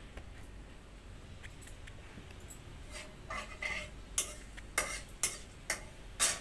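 Metal ladle scraping and clinking against the inside of a metal kadai, building in the second half to a run of sharp knocks about two a second.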